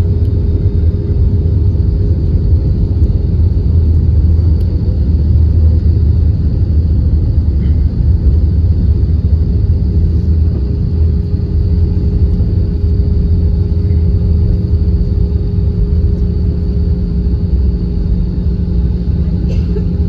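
Cabin noise inside an Airbus A320 rolling on the ground after landing: a steady low rumble with a constant hum running through it.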